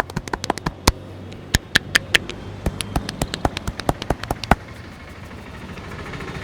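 Sharp hand slaps and claps on the head in a barber's percussive head massage, several a second and irregular, stopping about four and a half seconds in. After that comes a soft steady rustle.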